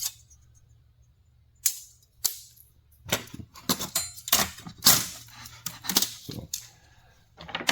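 Rules and small hand tools clicking and clattering as they are handled and laid down on a table: two sharp clicks, then a quick run of clicks and clatters.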